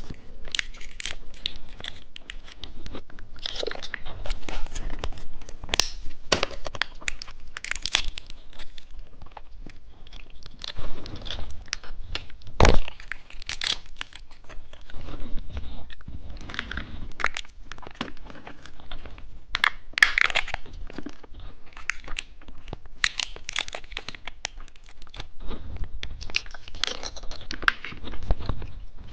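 Plastic candy packaging crinkling and being torn open, with irregular crunches and clicks throughout. One sharp click about 13 seconds in is the loudest sound.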